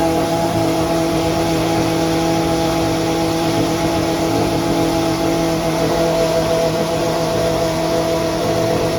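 Pagani Huayra R Evo's naturally aspirated V12 running steadily at constant revs, a loud, even drone that neither rises nor falls.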